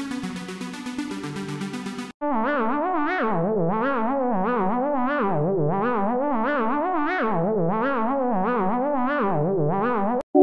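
A couple of seconds of electronic dance music, then an abrupt cut to a synthesized sound effect: a distorted, wobbling synth tone with a fast vibrato that swells up and falls back in pitch about once a second, ending in a hard cut.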